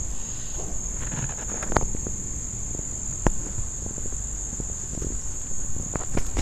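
Steady high-pitched chorus of insects, with a few light clicks and knocks from the phone being handled.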